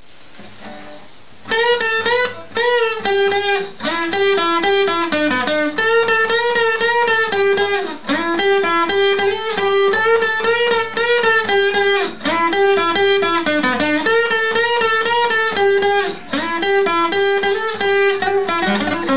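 Instrumental song intro with a plucked guitar playing a stepping melody over a steady bass line. It comes in about a second and a half in, after a quiet lead-in.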